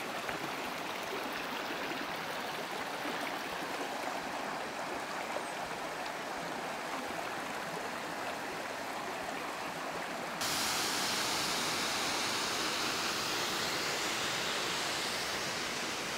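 Stream water rushing steadily over rocks. About ten seconds in it switches abruptly to a louder, hissier rush of water.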